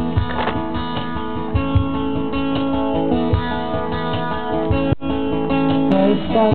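Instrumental passage of a song led by strummed acoustic guitar chords over a steady low beat.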